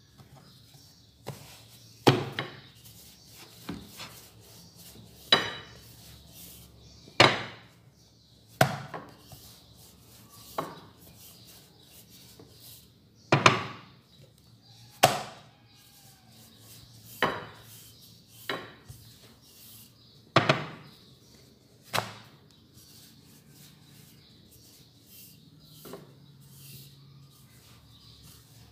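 A rolling pin knocking against a board as dough is rolled out: a series of sharp, irregular knocks every second or two, with soft rubbing between, thinning out over the last several seconds.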